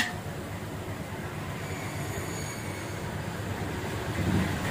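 A metal ladle clinks once against the aluminium rice pot at the very start, then a steady low rumble of background noise runs on.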